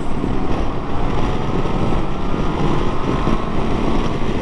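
Honda CB500X's 471 cc parallel-twin engine pulling as the bike accelerates, heard under a steady rush of wind and buffeting on the rider-mounted microphone.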